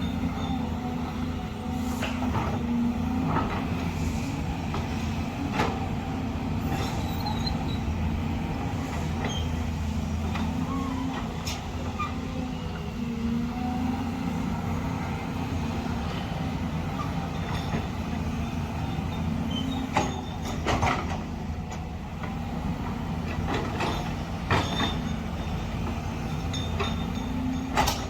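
Heavy diesel engine of a Volvo excavator running steadily, its pitch wavering a little as it works, with scattered sharp clanks and knocks, a few close together around two-thirds of the way through.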